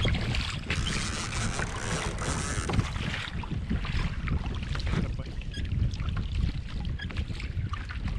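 Wind buffeting the microphone over choppy water lapping against a kayak, with a louder rush of hiss for about two and a half seconds near the start.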